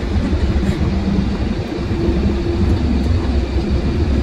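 Truck engine and road noise heard from inside the cab while driving: a steady low rumble with a faint engine hum over it.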